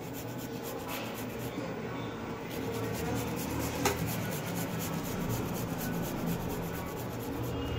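Quiet room tone: a low steady hum under faint rustling, with a sharp click just before four seconds in.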